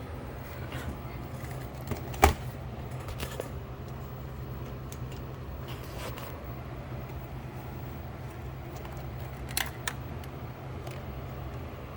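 Sharp clicks from handling a JVC compact VHS camcorder, the loudest about two seconds in and two close together near the end, over a steady low hum.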